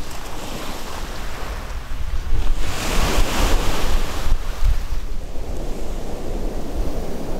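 Sea waves washing in, one louder wave about two and a half seconds in, with wind rumbling on the microphone throughout.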